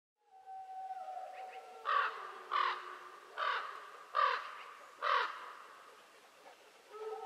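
Several wolves howling together in long, held notes that slide slightly in pitch, with a corvid cawing loudly five times over them, a little under a second apart.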